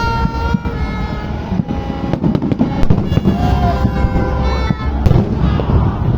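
Fireworks going off: a dense, continuous low rumble of bursts with many sharp cracks and crackles, heaviest from about two seconds in. Music with held tones plays along, loudest near the start and again at the very end.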